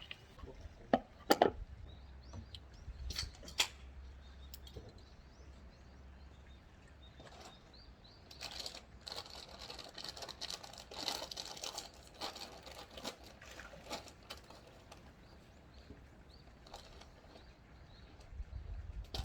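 Faint outdoor ambience with small birds chirping over and over, high and short, thickest in the middle. A few sharp clicks come in the first four seconds.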